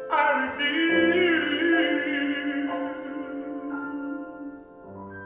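Male voice singing a drawn-out, sliding phrase of a ballad over instrumental accompaniment, dying away near the end.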